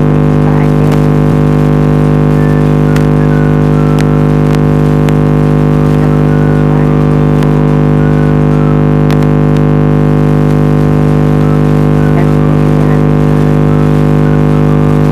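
A loud, steady buzzing drone made of many unchanging tones, with a few faint clicks.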